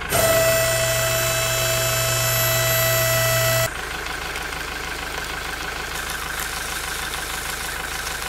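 Small electric motors of a cardboard model cold milling machine running with a steady whine. This cuts off abruptly about four seconds in, giving way to a quieter rattling grind as the model's milling drum cuts into loose gravel, with its motor still running.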